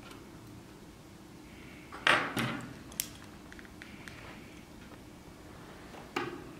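A few light clicks and taps of metal tweezers against the small parts of an iPhone 4S while the gold clip at the top of the board is fitted: the loudest about two seconds in, a sharp click about a second later, and another tap near the end.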